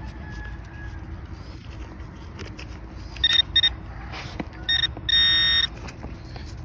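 A metal detector's electronics beeping on a buried target while a coin is being recovered. There are two short beeps about three seconds in, a third short beep near five seconds, then one longer beep of about half a second.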